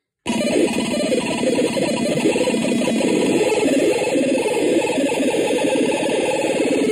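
Harsh electronic noise from the Hex Hive Wave Noise experimental sound machine: a loud, dense, jittery churn centred in the low mids with hiss above it. It cuts out for a moment right at the start, then resumes and runs on unbroken.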